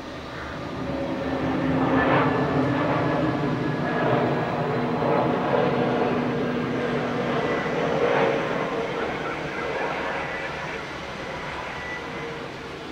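Airbus A320neo-family airliner landing, its twin turbofan engines running with a rushing roar and a steady hum. The sound swells over the first two seconds, stays loud for several seconds as the jet passes, then fades gradually.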